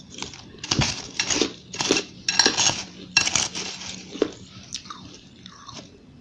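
Crunching and chewing a mouthful of powdery frozen ice in a rapid run of crisp crunches. Near the end come quieter scrapes and a click as a metal spoon digs into shaved ice in a glass bowl.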